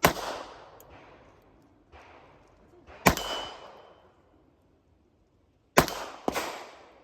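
Four shotgun shots on a competition stage: one at the start, one about three seconds in, then two close together near the end, each report dying away slowly. A fainter knock comes about two seconds in.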